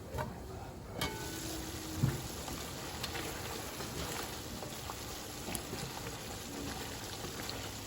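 Stewed chicken cooking in a covered pot, a steady sizzle and bubbling as it simmers in its own juices. A sharp click about a second in and a short knock about a second later.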